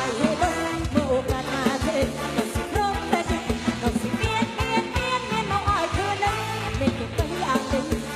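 Lam sing band music: a sliding, ornamented vocal or lead melody over a fast, steady drum beat and bass.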